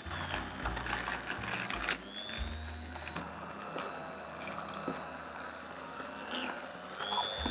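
Electric immersion blender motor running with a high whine, its blade stirring thick caramel with butter and chocolate in a glass bowl.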